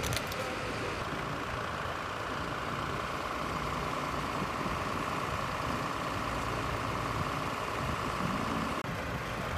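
An engine running steadily, with a constant high hum over it that starts about a second in and stops shortly before the end.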